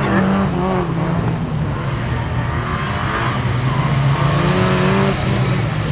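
Porsche 968's four-cylinder engine under hard driving, its note rising and falling as the car accelerates and lifts off between slalom gates.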